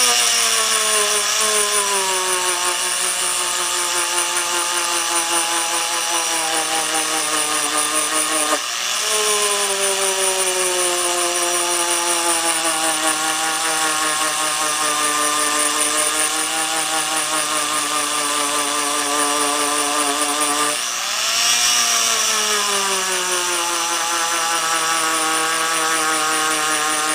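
Craftsman rotary tool (Dremel type) with a wire brush attachment running at low speed, scrubbing carbon off a clogged muffler spark arrestor screen. A steady motor whine whose pitch sags slowly as the brush bears on the screen, recovering briefly about a third of the way in and again near the end, over a fine scratching of the wire bristles.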